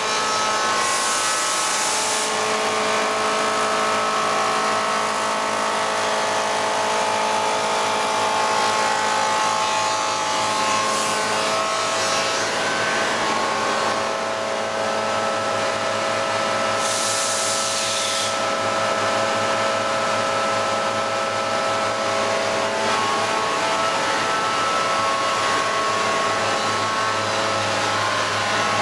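SAOMAD Sintesi window-frame corner machining centre running: a steady machine hum made of several constant tones from its motors and cutter spindles. Two short hisses break in, about a second in and again about halfway through.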